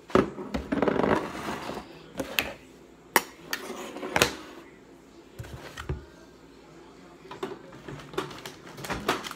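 A packet rustling, then scattered sharp clinks and knocks of a metal spoon and a glass mixing bowl on a kitchen counter.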